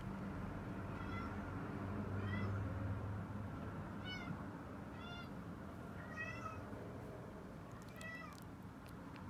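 A very young Munchkin × Bengal mix kitten mewing six times, about a second or two apart. Each mew is short and high, rising then falling in pitch. A steady low hum runs underneath.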